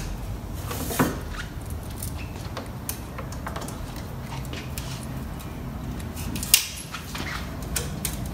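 Steel exhaust springs being hooked onto a go-kart's exhaust pipe and silencer cradle with a spring puller: scattered metal clicks and clinks. There is a sharp click about a second in and a louder snap about six and a half seconds in, over a steady low hum.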